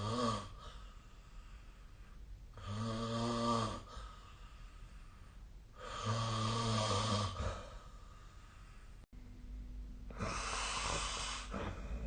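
A person snoring in sleep: pitched snores about every three seconds, then after a brief break a rougher, breathier one near the end.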